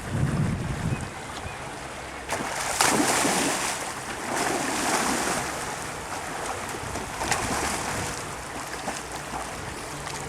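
Water splashing in three bursts over a steady rush of water, as a dog wades and plays in a river.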